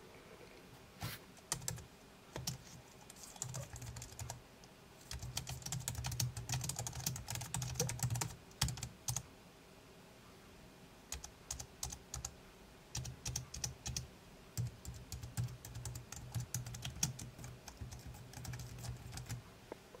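Typing on a Logitech MX Keys low-profile scissor-switch keyboard: quick, quiet key clicks in two runs, with a pause of about two seconds near the middle.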